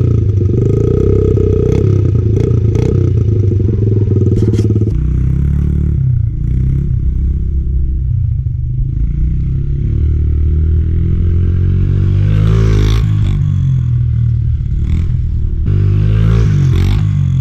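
Honda XR70R's small four-stroke single-cylinder engine running with its raw exhaust note, the revs climbing twice in the second half.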